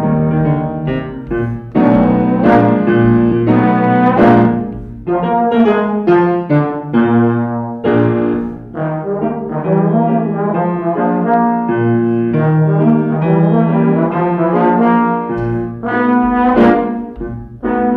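Slide trombone playing a melody with piano accompaniment.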